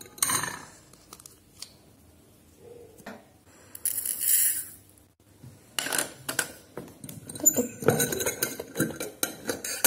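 Clinks of a plastic measuring spoon against a glass swing-top jar as granulated sugar is scooped, then a short hiss of sugar tipped into a bowl about four seconds in. From about six seconds there is a run of clatters as plastic spoons are set down in the bowl and the jar is handled.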